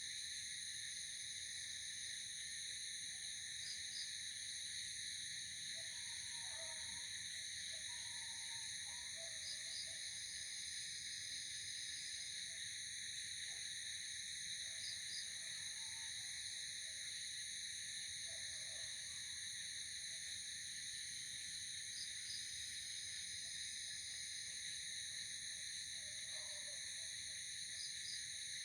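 Night insect chorus: crickets trilling in a steady, unbroken drone of high tones. A short double chirp repeats about every six seconds, and faint lower calls come and go through it.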